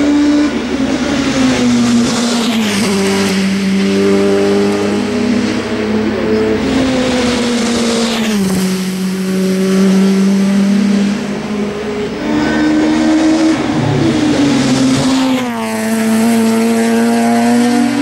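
Renault Laguna BTCC touring car's naturally aspirated 2-litre engine at high revs, racing through a hairpin. The engine note drops and rises in steps several times as the driver brakes, shifts gears and accelerates away.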